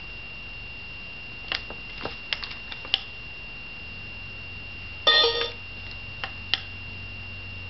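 Sharp plastic clicks of doorbell buttons being pressed, then a short electronic beep from a wireless doorbell receiver about five seconds in. A faint steady high whine runs underneath.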